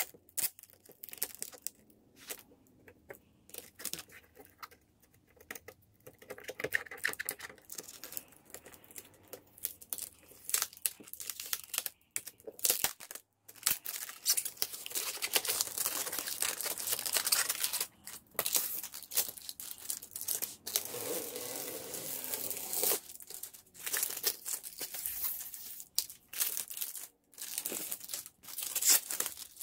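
Clear plastic protective film being peeled off a flat-screen TV, crinkling and tearing in irregular bursts, with one long continuous peel through the middle.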